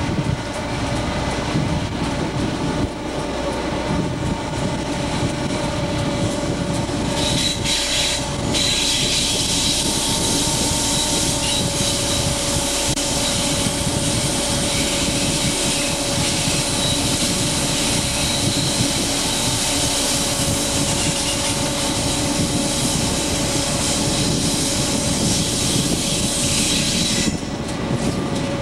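An EMD GF6C electric locomotive running, heard from its cab: a continuous rumble with a steady hum and a thin constant whine over it. A brighter hiss comes in about seven seconds in and drops away shortly before the end.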